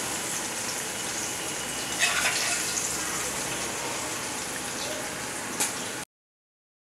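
Hot tempering oil with mustard seeds and green chillies sizzling as it is spooned over steamed khaman pieces: a steady hiss that flares up about two seconds in. There is a light click near the end, and the sound cuts off suddenly about six seconds in.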